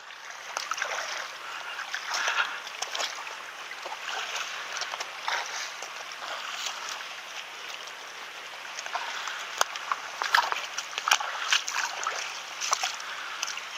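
Footsteps wading through shallow water over a rocky reef flat: irregular splashes and sloshing with sharp clicks of stones underfoot, over a steady wash of water.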